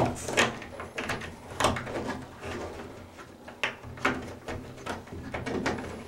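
Bundled Cat5e cables being handled and fed through a plastic standoff bracket: scattered, irregular clicks and knocks of cable jackets and plastic against the bracket and backboard.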